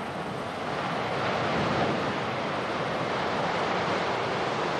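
Steady rushing noise of a mine-pit wall giving way, earth and floodwater pouring down into the open-pit mine, growing a little louder about a second in.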